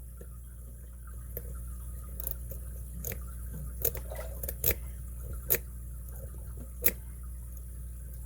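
Lock-picking tools clicking and tapping in a brass padlock: a handful of sharp metallic clicks, roughly a second apart through the middle, with faint scrapes and ticks between them, over a low steady hum.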